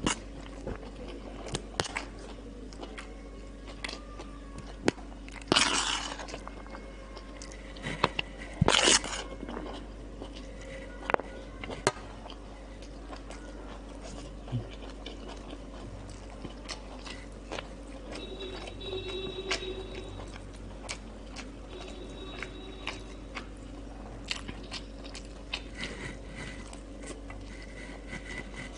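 Close-up eating: chewing and crunchy bites of breaded fried chicken (pané) with rice and salad, with clicks of a spoon against the plate. The two loudest crunches come about six and nine seconds in.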